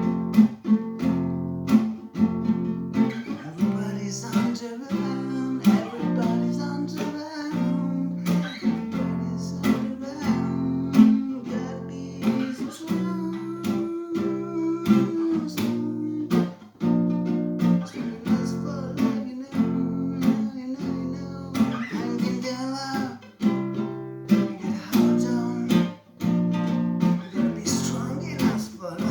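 Acoustic guitar strummed in chords with a steady rhythm, the chord changing every second or so.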